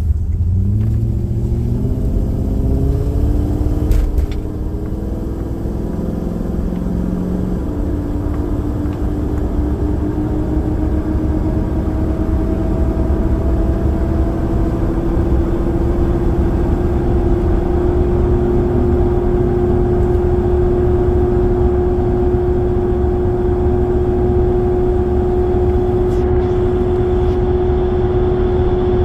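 Toyota Tundra pickup accelerating through the gears. About eight seconds in, a loud steady hum sets in and rises slowly in pitch as the truck holds speed above 45 mph. The owner suspects a bad wheel bearing.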